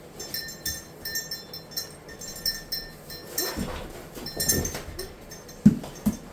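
Repeated light metallic clinking and jingling among goats being handled, with a short low animal call around the middle and a sharp knock about five and a half seconds in.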